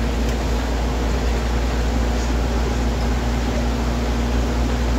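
Interior noise of a Solbus SM18 city bus under way: the steady drone of its Cummins ISL8.9 six-cylinder diesel and Voith automatic driveline, with a constant hum and an even hiss from the tyres on a soaking wet road.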